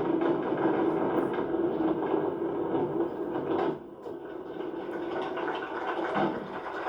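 Vehicle driving, with a steady low drone of road noise that drops away briefly just under four seconds in and then builds back.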